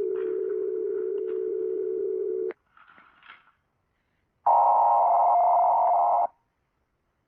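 Emergency alert alarm tones: a steady low electronic tone that cuts off sharply about two and a half seconds in, a faint short blip, then after a pause a louder, higher tone lasting about two seconds.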